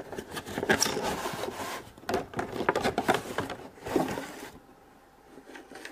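Cardboard toy box being opened by hand: cardboard and packaging scraping and rustling, with many small clicks and knocks, dying down after about four and a half seconds.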